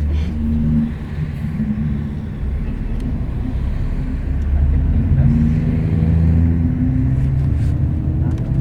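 Bus engine and road rumble heard from inside the passenger cabin while travelling, with a deep steady drone and the engine pitch rising gradually through the second half as the bus speeds up.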